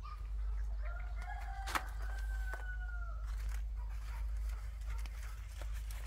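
A rooster crowing once, a single long call of about two seconds that drops at the end, over a steady low rumble with a few sharp clicks.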